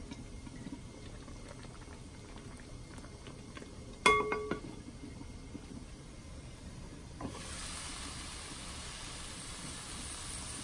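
Food bubbling in a pot on the stove, with one ringing metal clink about four seconds in. From about seven seconds a steady sizzling hiss takes over.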